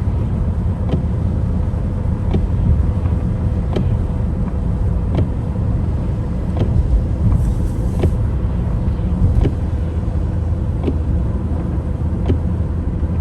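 Steady low road and engine rumble inside a moving car, with a short click repeating about every second and a half.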